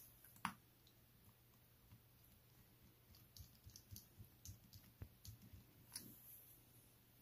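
Faint clicks and small ticks of a precision screwdriver turning tiny screws into a watch's stainless steel caseback. One sharper click about half a second in, then a run of soft quick ticks from about three seconds in, and another click around six seconds.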